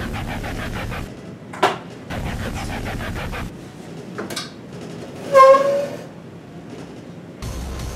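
Office chair casters rolling over a hard floor in stretches, with sharp knocks about one and a half and four seconds in. About five and a half seconds in comes a short high squeal, the loudest sound.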